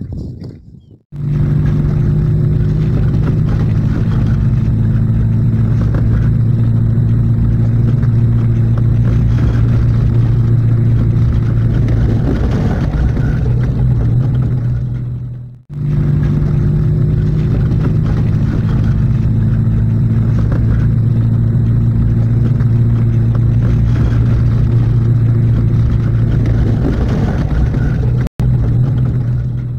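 Car engine and road noise heard from inside the cabin while driving along a dirt road: a loud, steady low drone. It cuts out briefly about halfway through and for a moment near the end.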